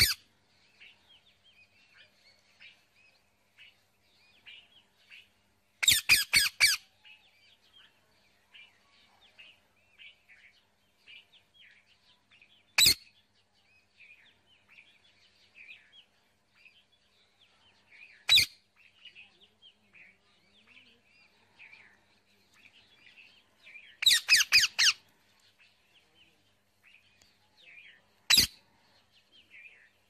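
Rose-ringed parakeets screeching: loud harsh calls, a quick run of four about six seconds in and another run around twenty-four seconds, with single calls in between. Faint bird chirping and twittering continues throughout.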